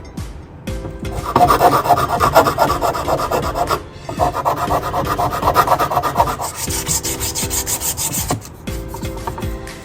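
Rapid rasping strokes, like a file or rasp worked back and forth, in two long spells with a short break between, then a lighter, higher-pitched scraping for a couple of seconds.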